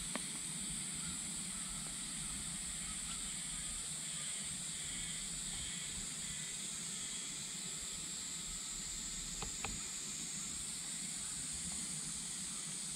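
Steady high-pitched outdoor hiss, with a few faint clicks about nine and a half seconds in and again near the end.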